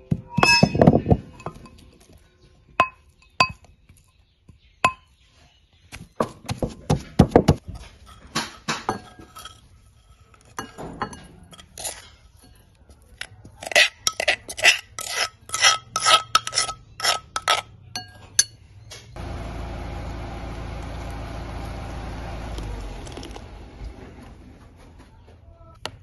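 Wooden pestle thudding in a clay mortar, pounding a dry fermented-soybean and chilli mix. About halfway through comes a quick run of clinks as the mix is scraped out of the mortar into a glass bowl. Then liquid pours steadily into the bowl for about four seconds.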